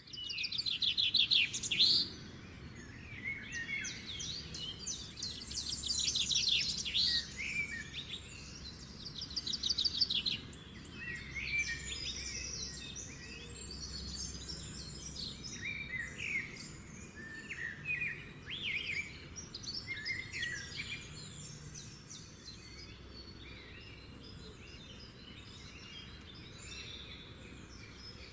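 Many small birds chirping and calling over one another in quick, high trills, busiest and loudest in the first ten seconds and sparser toward the end, over a steady low background rumble.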